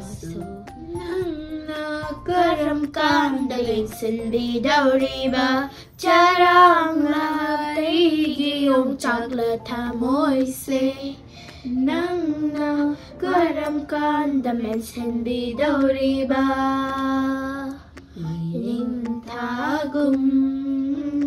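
A high voice singing a slow, wavering melody with long held notes, pausing briefly about six seconds in and again near eighteen seconds.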